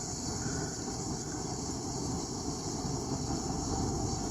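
Steady high-pitched chorus of crickets over a low, continuous rumble.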